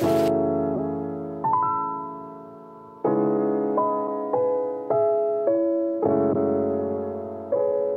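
Slow solo piano melody, single notes and chords struck and left to ring and fade. A rain hiss under it stops abruptly just after the start.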